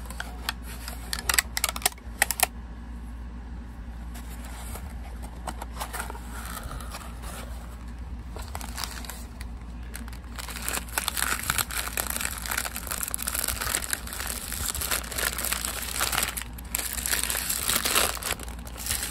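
Packaging being unwrapped by hand: a few sharp clicks in the first couple of seconds, then dense crinkling and rustling from about halfway through to the end.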